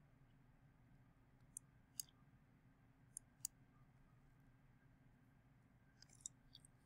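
Faint computer mouse clicks as anchor points are placed with Illustrator's pen tool: two pairs of clicks in the first half, then a quick flurry of clicks near the end, over a faint low hum.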